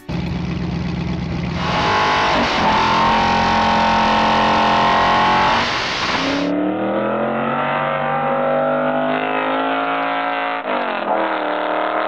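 Ferrari 3-litre V8 in a Fiat 500, revved: the engine note is held high and steady for several seconds. It then cuts to another recording in which the pitch climbs as the car accelerates, dips once near the end and climbs again.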